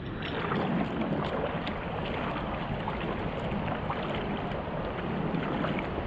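Water splashing and lapping against the hull of a moving outrigger boat, with steady wind noise on the microphone.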